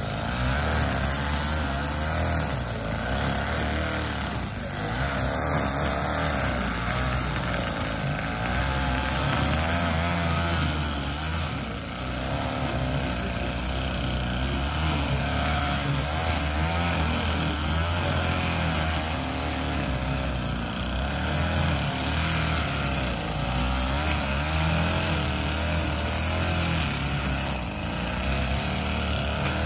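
String trimmer running steadily while it cuts grass, its motor pitch wavering slightly as the load changes.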